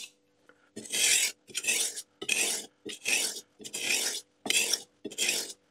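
A kitchen knife drawn back and forth across a wet 240/1000-grit combination whetstone, a rasping scrape with each stroke. There are about eight strokes at an even pace, roughly one every two-thirds of a second, with short gaps between them.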